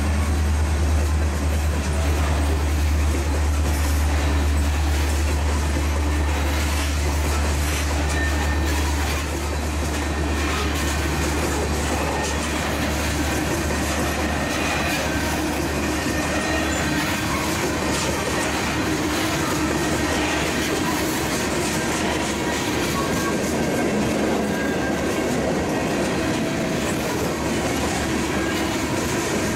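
Freight train's covered hopper cars rolling past steadily, wheels clattering over the rail joints. A deep rumble under it drops away about nine seconds in.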